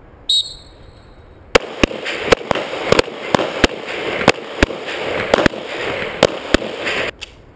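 A shot timer beeps once, giving the start signal. About a second later comes a rapid, irregular string of roughly a dozen pistol shots over about five and a half seconds.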